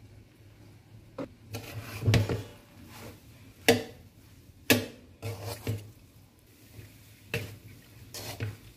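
Flat metal spatula scraping and knocking against a metal kadai while stirring fried rice. The knocks are irregular, the sharpest a little under four and five seconds in.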